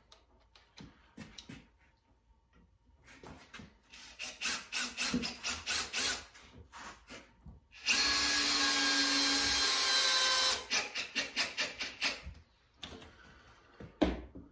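Cordless drill driving screws into the aluminum quench-vise plates: a run of short rapid trigger pulses, a steady run of about two and a half seconds, then more short pulses. A single knock comes near the end.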